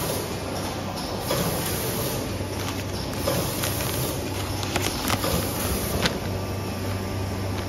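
Powder pouch-packing line running: a steady machine hum with irregular sharp clacks and rattles.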